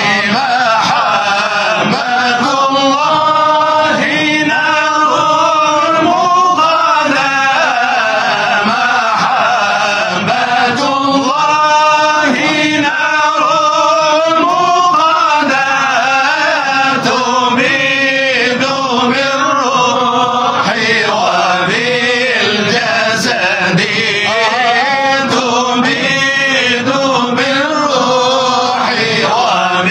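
Male Shadhili Sufi munshids chanting a devotional inshad, a long melodic line that glides up and down without a break.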